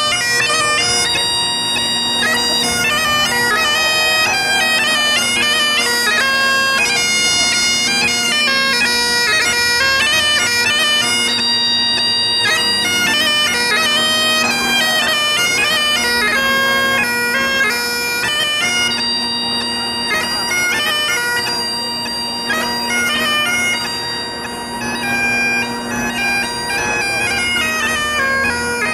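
Highland bagpipes playing a tune: a steady drone held under the chanter's melody, which moves in quick stepwise notes.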